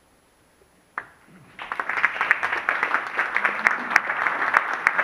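Seated audience applauding. It breaks in about a second and a half in, after a short hush and a single sharp click, and keeps up as dense, steady clapping.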